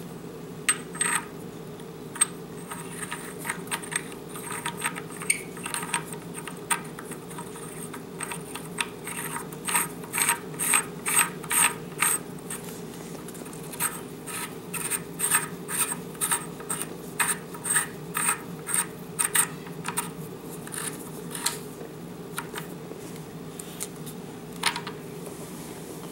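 Krinkov-style muzzle brake being screwed by hand onto the threaded muzzle of a PAP M92 AK pistol, its spring-loaded detent pin clicking over the notches in the brake: a series of sharp metallic clicks, at times about two a second, over a steady low hum.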